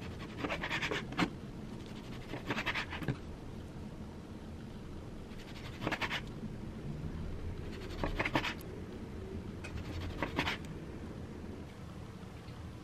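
Knife slicing raw tuna on a cutting board: about five short strokes, one every second or two.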